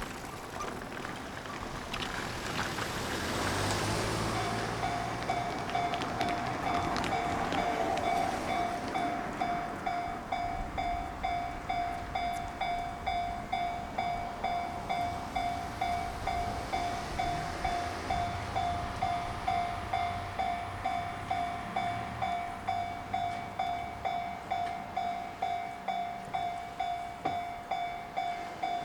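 Japanese railway level-crossing warning bell ringing, a single-pitched electronic ding repeating steadily about twice a second; it starts about four seconds in.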